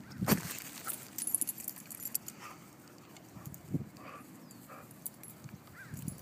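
Poodles wrestling in play on grass: a sharp thump about a third of a second in, then scuffling and short low grunts from the dogs.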